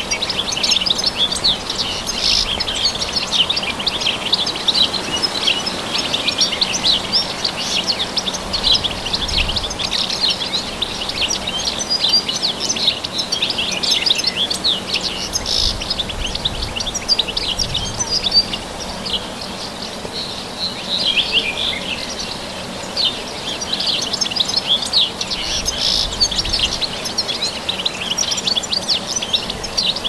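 European goldfinch singing: a long run of rapid, high twittering chirps, with a short lull about two-thirds of the way through.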